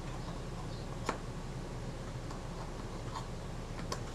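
A handful of small, sharp metal clicks as the Synchro-Compur shutter's case is pressed down and seated over the mechanism plate, the sharpest about a second in. A steady low hum lies underneath.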